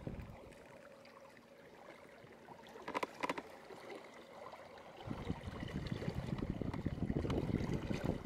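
Water lapping and trickling around a small boat, with a brief clatter of clicks about three seconds in. From about five seconds on, gusty wind buffets the microphone.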